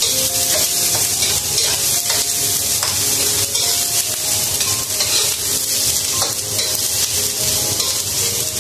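Chopped onions sizzling in hot oil in a wok, stirred with a spatula that scrapes and ticks against the pan. The sizzle is a steady hiss with many small strokes.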